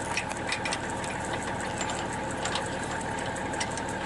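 Vehicle engine running steadily, with many small irregular ticks and clicks over its drone.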